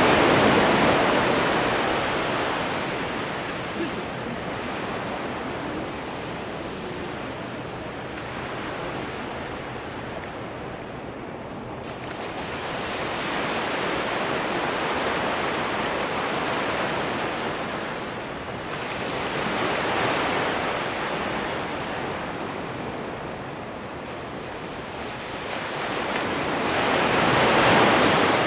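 Ocean surf breaking and washing up a sandy beach, the rush rising and falling as each wave comes in. It is loudest at the start and again near the end, with smaller swells in between.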